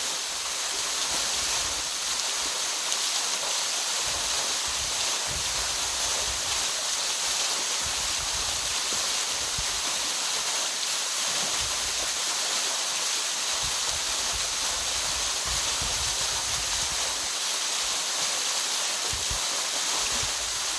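Running water rushing steadily, with low rumbles coming and going underneath.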